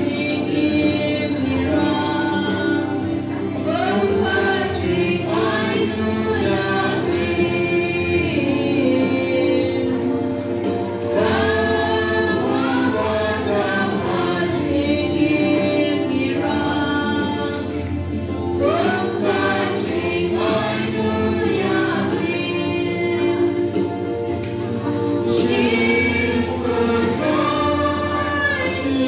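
Church choir singing a hymn, accompanied by an electronic keyboard playing sustained chords.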